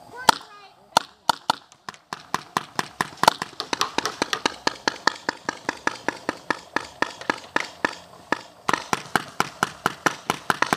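Paintball marker firing: a few scattered shots in the first two seconds, then a fast, steady string of sharp shots at about six or seven a second.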